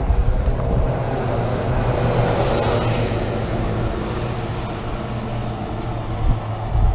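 Road traffic: a vehicle passes, its noise swelling to a peak about two to three seconds in and then fading, over a steady low engine drone.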